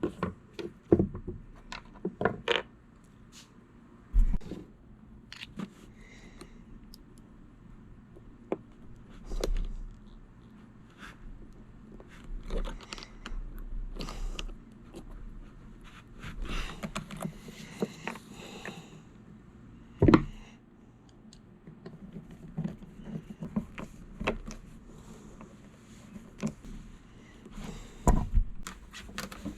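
Irregular clicks, knocks and scrapes of small parts being handled and fitted together, as fuel line, filter and pump parts are connected, with a sharp knock about twenty seconds in and a few stretches of rustling and scraping.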